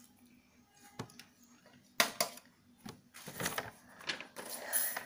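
Handling noises of small school supplies: a few clicks and knocks, the sharpest about two seconds in, then rustling near the end.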